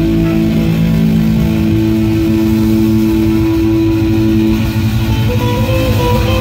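Live blues-rock band holding long sustained chords on electric guitar and a Hammond-style organ (a Hammond SK1 stage keyboard). A few higher notes step upward near the end.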